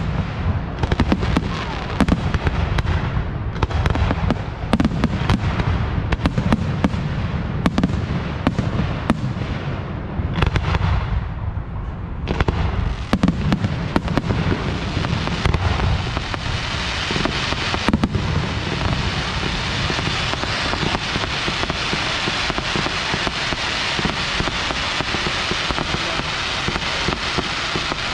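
Fireworks display: aerial shells launching and bursting in quick succession, several sharp bangs a second. After about fourteen seconds the separate bangs give way to a dense, steady crackling noise with fainter reports in it.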